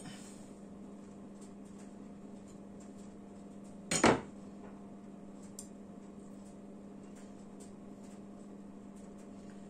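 A kitchen knife knocks against a cutting board about four seconds in: one short, sharp double knock over a steady low hum.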